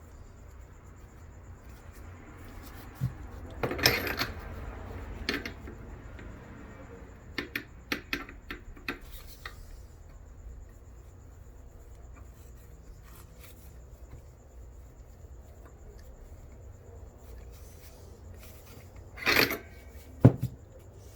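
Metal transmission parts and tools handled on a bench: soft rubbing and scattered clicks and clinks as a sealing-ring resizing tool is worked over the 4L60E input drum's shaft. Two louder knocks come near the end.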